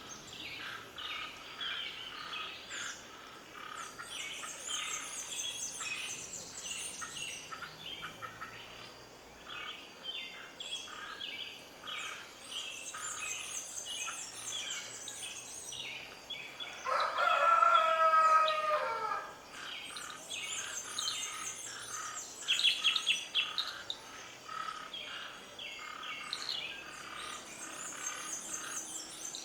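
A chorus of birds chirping and singing, with one louder, drawn-out call lasting about two seconds a little over halfway through and a short fast trill soon after.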